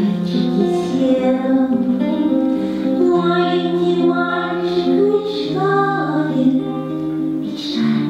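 A woman singing a musical-theatre song over instrumental accompaniment, the melody moving in long held notes.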